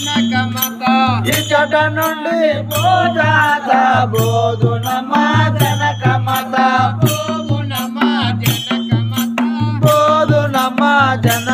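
A voice singing a drawn-out devotional Telugu melody with sliding, held notes, over a low accompaniment that pulses in a steady rhythm about once a second. Sharp metallic clicks of small hand cymbals (chiruthalu) keep time through it.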